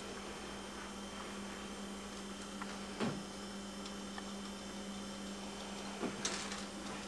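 Steady low electrical hum over a faint hiss, with a short knock about three seconds in and another knock and a brief rustle near the end.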